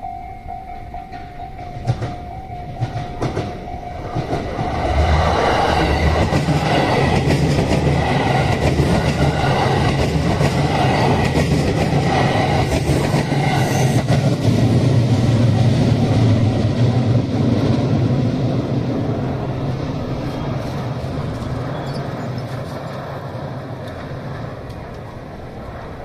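An electric train passing over a level crossing. It is loud from about five seconds in and fades away over the last several seconds. A crossing alarm's steady pulsing tone sounds for the first few seconds.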